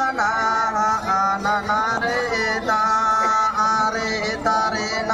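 Men singing a Santali Karam dance song in long held notes that step up and down in pitch, in a chant-like style.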